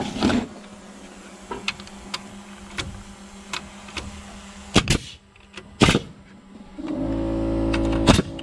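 Pneumatic framing nailer driving nails into a timber rafter: several sharp shots, some in quick pairs, with lighter clicks of the tool between them. A steady motor hum starts about seven seconds in.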